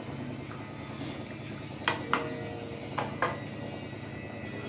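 Steel tea strainer knocking against a stainless steel bowl of soaking water: two pairs of light metallic clinks, each with a brief ring, over a faint steady hum.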